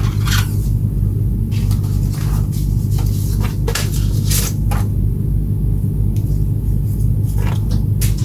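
A steady low hum with several even tones, with short clicks and brief scraping sounds scattered through it, typical of parts and tools being handled at a workbench.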